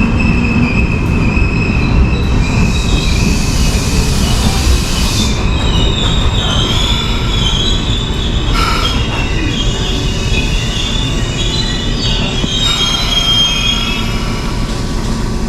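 XPT diesel passenger train moving on the rails, with a steady low rumble and high, wavering metallic squeals from the wheels.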